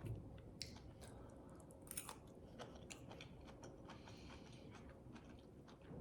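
Faint chewing and mouth sounds of someone eating, with scattered soft clicks and a few sharper ones.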